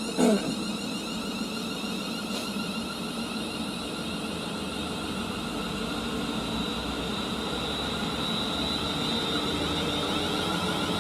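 A train running on the line, heard as a steady mechanical hum with a thin high whine that grows slightly louder toward the end as it draws nearer. A short falling chirp sounds right at the start.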